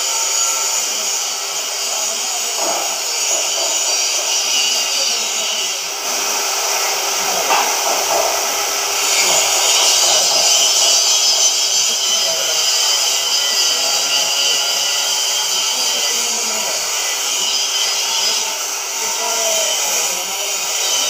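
CNC oxy-fuel cutting torch hissing steadily as it burns through steel plate, cutting out a flange.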